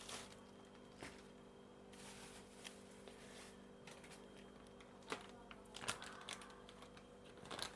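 Near silence: faint room tone with a steady low hum and a few faint scattered clicks.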